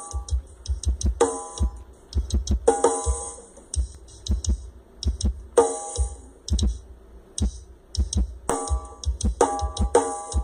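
Instrumental electronic dance music: a drum-machine beat with heavy bass kicks and sharp percussion clicks, punctuated by short, bright pitched stabs every second or so.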